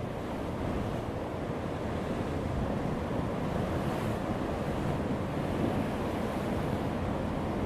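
Heavy ocean waves breaking on a rocky shore: a steady, deep rush of surf.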